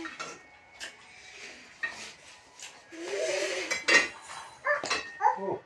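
A series of light clicks and clinks of hard objects knocking together, the loudest about four seconds in, with short pitched vocal sounds near the middle and end.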